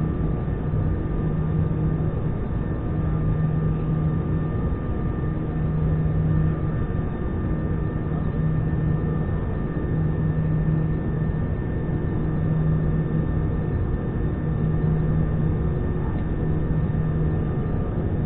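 Airbus A320-214 cabin noise while taxiing: the steady drone of its CFM56-5B engines at low power, with faint steady whining tones and a low hum that swells and fades every couple of seconds.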